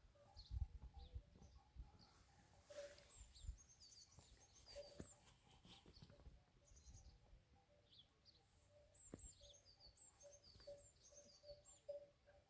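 Faint chirping of small birds: quick runs of short high notes a few seconds in and again near the end, with a few soft knocks.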